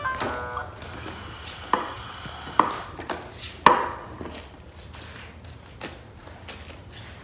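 A ride-on toy aeroplane's electronic tune ends just at the start. Then come a few sharp knocks and taps on the toy's plastic, the loudest about three and a half seconds in.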